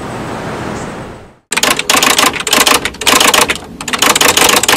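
Steady outdoor background hum that fades away just over a second in; after a brief silence, a rapid clatter of typewriter keystrokes begins, coming in quick runs with short pauses, a sound effect over a title card.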